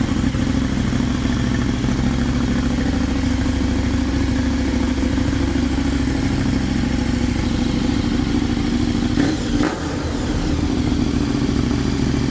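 KTM 1290 Super Duke R's V-twin engine idling steadily through its exhaust, with a brief louder moment about nine seconds in.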